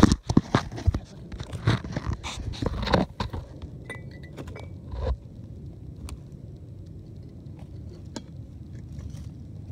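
Knocks and rustles of a handheld camera being moved during the first three seconds, then quiet evening outdoor background with a few faint short chirps about four seconds in and an occasional click.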